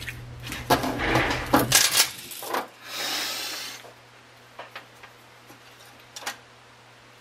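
Handling sounds at a workbench as a soldering iron and small electronic parts are moved about: a run of light clicks and knocks, then a short rustle about three seconds in, then only a few faint ticks.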